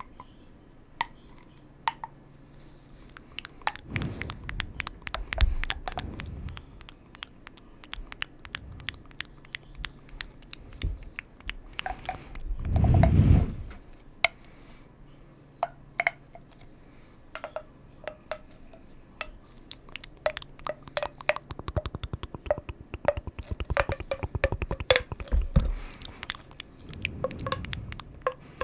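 Close-miked ASMR trigger sounds: many crisp clicks and soft squishy, crunchy noises, growing into a quick dense run of clicks near the end, with a louder low whoosh about halfway through.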